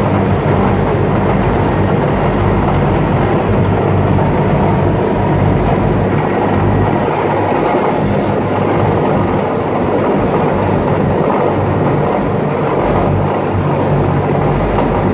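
Amphibious duck tour vehicle under way on the water: its engine drones steadily with a low hum, over the rush of water churning in its wake.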